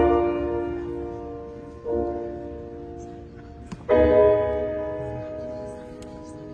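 Grand piano playing slow chords, three struck about two seconds apart, each left ringing and slowly fading.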